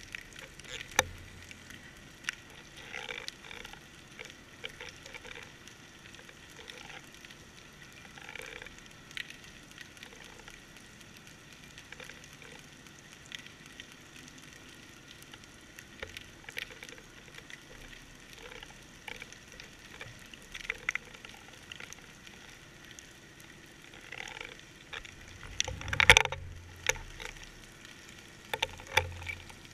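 Underwater crackling heard through a GoPro's waterproof housing: scattered irregular clicks and ticks, with a sharp loud knock and a few low bumps a few seconds before the end.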